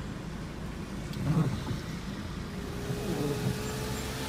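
Outdoor street noise: a low, steady rumble with a short louder sound about a second in, and a long steady tone with a couple of brief dips in pitch starting about halfway through.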